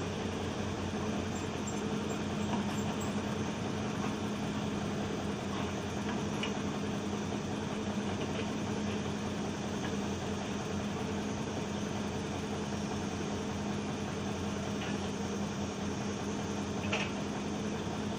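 Heavy machine's engine running steadily, a low even drone, with a few faint knocks and one sharper clank near the end.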